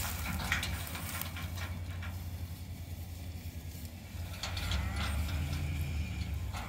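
Light metallic rattling and clicking over a steady low engine hum. The rattling eases off for a couple of seconds in the middle, then picks up again.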